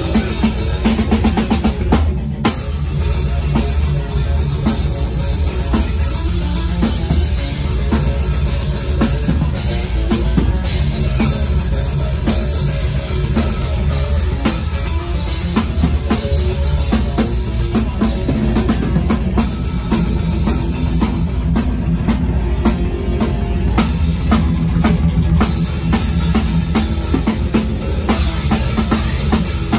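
Live death metal band playing at full volume, close up from the front of the stage: rapid, unbroken drum kit with pounding bass drum and cymbals under distorted bass and guitars, with no break in the music.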